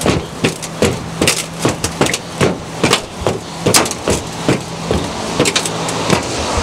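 Footsteps of sneakers climbing aluminium grandstand stairs at a brisk pace, about two and a half footfalls a second, thinning out near the end.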